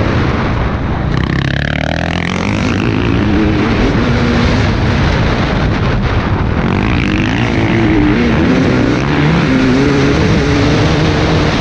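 KTM dirt bike engine revving up and down repeatedly as the rider accelerates and backs off, with heavy wind noise on the helmet camera.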